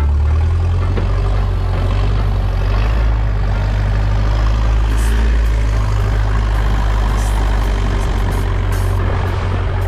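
Long-tail boat's inboard engine running steadily under way: a loud, constant low drone with a dense rushing noise over it.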